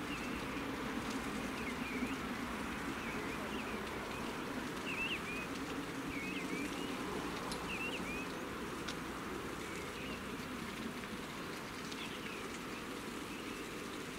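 Birds chirping in short, scattered calls over a steady rushing background noise.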